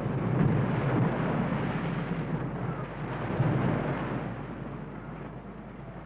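A breaking ocean wave: a rush of surf that is loudest in the first second, swells again about three and a half seconds in, then slowly fades.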